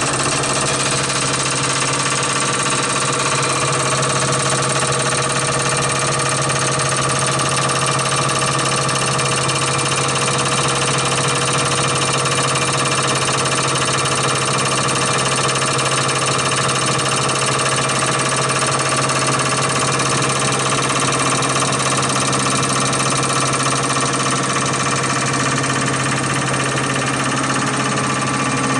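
CR926 common rail test bench running an injector test: its drive motor turning the high-pressure pump while the mounted common rail injectors fire. A loud, steady machine drone with a strong low hum and several steady whining tones, unchanging throughout.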